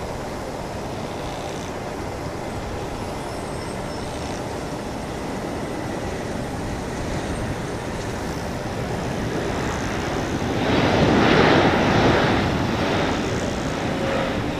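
Airbus A320neo jet engines on the landing rollout after touchdown: a steady distant jet roar that swells louder for a couple of seconds about ten seconds in, then eases off.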